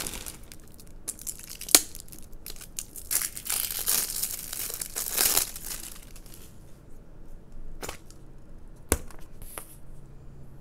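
Thin plastic crinkling and tearing as a tub of neon slime is unsealed and opened, with a sharp click about two seconds in and another sharp knock near the end.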